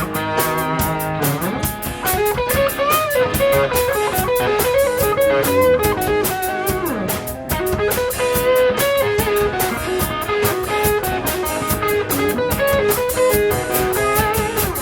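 Garage rock with an overdriven electric guitar, a Gibson Les Paul, playing a lead line with string bends over bass and drums with steady cymbals.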